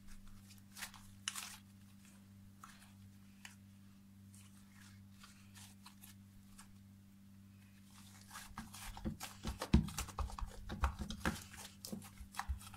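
Fluffy shaving-foam slime being squeezed and stretched by hand, crackling and popping. Scattered soft clicks at first, then dense crackling from about two-thirds of the way through.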